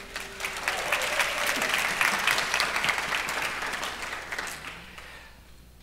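Audience applauding, starting just after the start, holding steady for a few seconds, then dying away over the last second or two.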